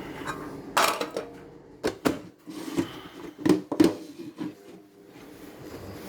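Household objects being handled: a series of knocks and clatters, the loudest about a second in and two close together near the four-second mark, like containers or a drawer being worked while fetching food.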